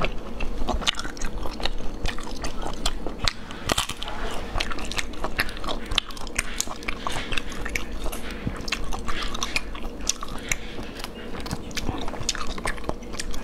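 Mouth sounds of eating cooked sea snails: wet smacking and chewing, with many quick sharp clicks throughout.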